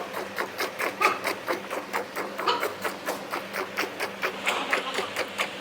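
Rapid, even mechanical clicking, several clicks a second, over a steady low hum.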